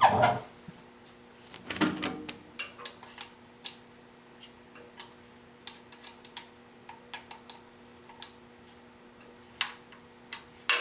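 Hand tools working small Allen-head bolts: an Allen wrench clicking and tapping against metal, with scattered light metallic clicks and a few louder clanks, the loudest at the very start.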